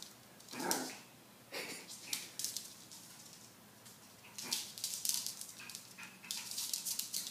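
A small white fluffy dog gives a couple of short, wary barks at an object on the floor that it is afraid of, then a run of quick scrabbling clicks, like claws on the tile floor as it dashes around.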